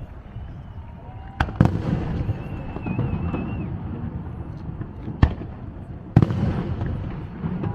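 Aerial fireworks shells bursting with sharp bangs: two close together about a second and a half in, then more about five and six seconds in, each followed by rumbling and crackle. A wavering whistle sounds between the bangs.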